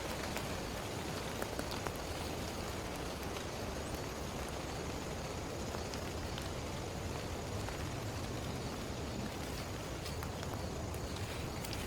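Steady heavy rain falling, an even hiss with scattered individual drops ticking close by.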